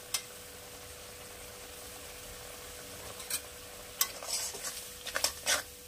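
Onion and spice masala sizzling gently in an aluminium kadai. From about three seconds in, a steel spatula scrapes and stirs it against the pan in short strokes while the masala is being fried down.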